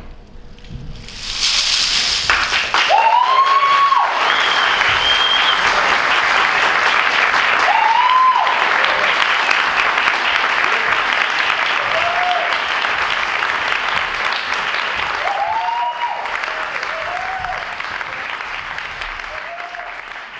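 Audience applauding, starting about a second and a half in. Whoops and cheers rise over the clapping every few seconds, and the applause slowly dies down near the end.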